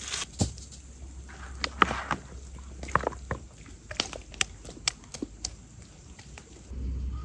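Hands handling whole marinated chickens in a plastic bowl: scattered soft wet squelches and small clicks as a chicken is lifted out of the marinade.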